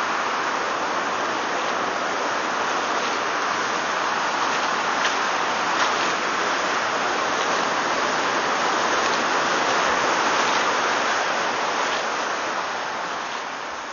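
Whitewater river rapids rushing: a steady, dense wash of moving water with a few small splashes, easing slightly near the end.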